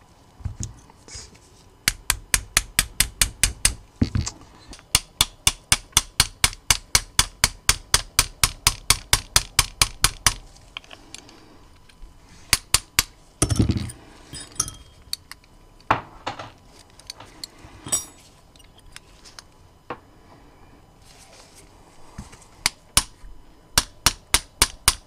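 Brass hammer tapping a pin out of a SIG P320 fire control unit's housing: a run of sharp, evenly spaced metal taps, about four a second, for some eight seconds. After that come scattered single taps and clicks, with a quick cluster near the end.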